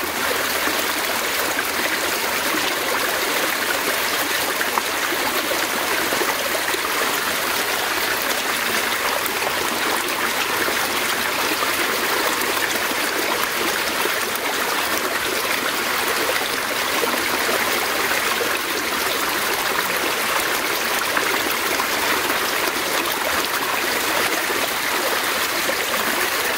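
Fast-flowing stream running with a steady, even rush of water.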